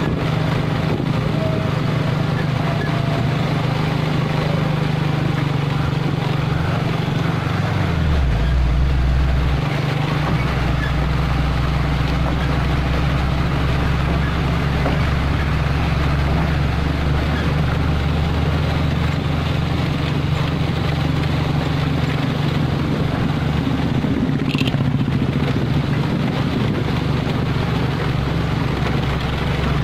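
Mitsubishi Fuso 220PS truck's diesel engine running steadily as the truck moves slowly, a deep constant hum with a lower drone strengthening briefly around eight to ten seconds in.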